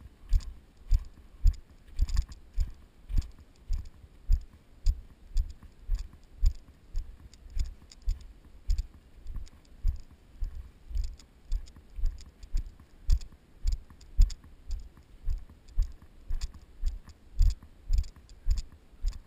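A hiker's walking footsteps on dry grass and patchy snow: even low thuds about two a second, each with a light crunch.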